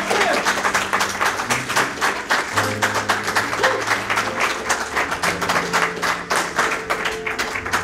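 A congregation applauding, with many hands clapping quickly and unevenly.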